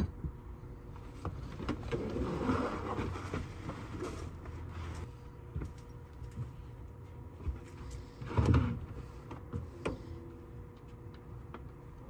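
Wooden panels being handled and shifted: scattered knocks and scraping, with a heavier thump about eight and a half seconds in.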